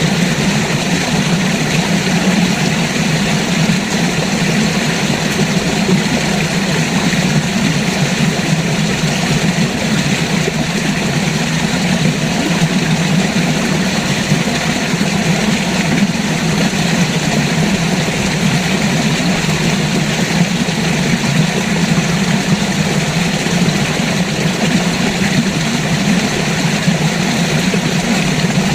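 River water rushing steadily, a loud, unchanging flow with a deep rumble under the hiss.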